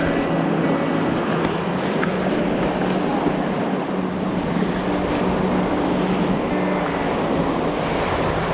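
Rushing river water, a steady noisy rush, with wind buffeting the microphone.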